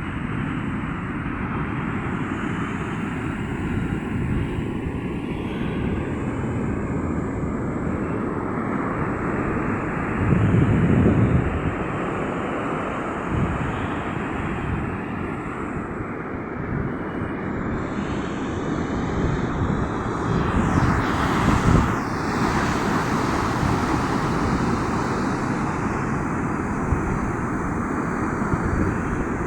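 Sea waves washing ashore with wind gusting across the microphone in low rumbles. There are louder surges about ten seconds in and again around twenty-one seconds.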